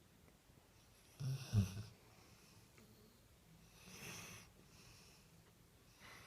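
Doberman snoring in her sleep: one loud, rumbling snore about a second in, then a softer, wheezy breath out a couple of seconds later.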